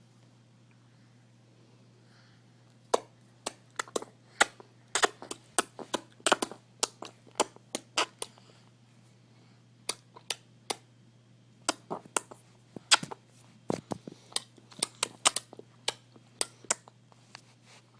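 A baby making sharp clicking sounds with his mouth: a long, irregular run of clicks, at times several a second, starting about three seconds in and stopping near the end, over a faint steady hum.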